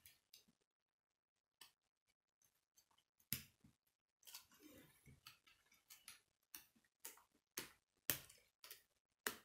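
K'nex plastic rods and connectors clicking as they are snapped together by hand: a few sharp separate clicks, coming faster in the second half, with soft rustling of the plastic parts just before the middle.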